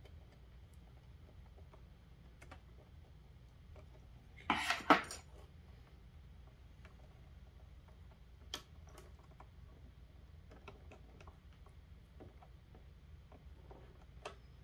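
Scattered small clicks and taps of wires and plastic connectors being handled against a circuit board inside a plastic enclosure. A louder clatter of a few quick knocks comes about four and a half seconds in.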